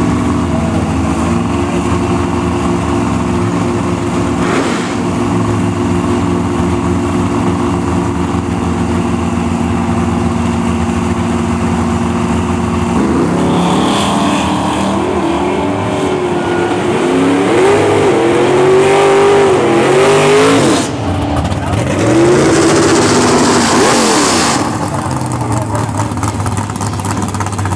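Two drag race cars idle at the starting line with a steady engine note, then launch at full throttle about 13 seconds in. Their engines rise in pitch through several gear changes as they run down the strip, and fade to a steadier, distant engine sound near the end.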